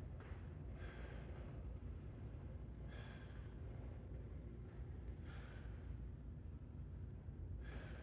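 A man's heavy breathing from the effort of shadow boxing: a sighing exhale about every two seconds, over a steady low hum.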